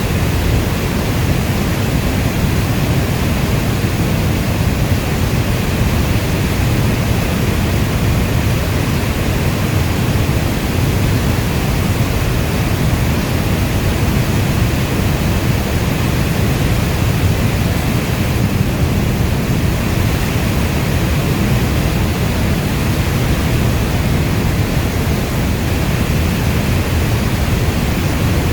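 Steady, unbroken rainfall: a dense, even hiss with no single drops standing out, weighted toward a deep low rumble.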